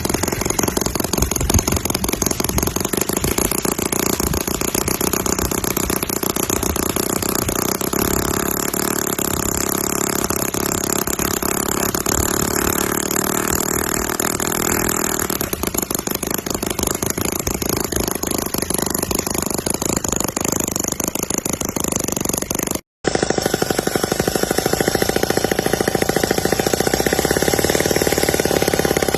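Small diesel tractor engine running with a steady, rapid knocking beat. It drops out for a moment about two-thirds of the way through, then carries on.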